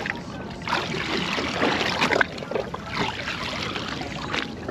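Sea water sloshing and splashing against the side of a boat's hull in uneven surges, with a few short splashes.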